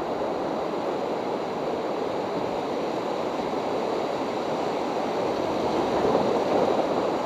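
Whitewater rapids rushing steadily around a raft, a little louder about six seconds in.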